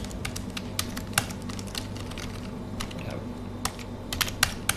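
Computer keyboard keys clicking in irregular runs as a command is typed into a terminal and partly erased with backspace, over a steady low hum.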